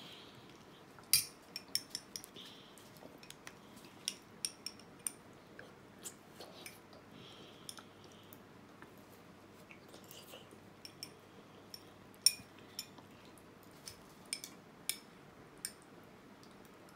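A spoon clinking and scraping against a small glass dessert cup while scooping, heard as scattered sharp clicks, the loudest about a second in and again about twelve seconds in.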